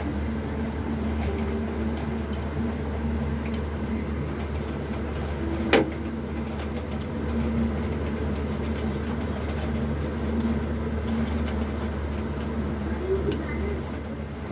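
Appe frying in oil in a cast-iron appe pan: a light sizzle with scattered small crackles over a steady low hum. One sharp metal click about six seconds in, as a skewer turns the appe in the pan.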